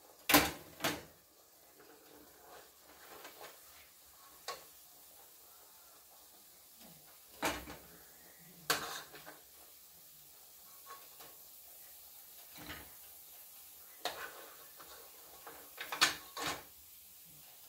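Metal spoon clinking and scraping against a cooking pot as the food is stirred and scooped. About nine sharp knocks come scattered through, the loudest at the very start and near the end, with quiet stretches between.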